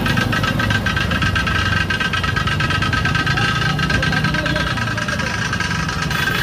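Auto-rickshaw engine running steadily while riding, heard from inside the rickshaw.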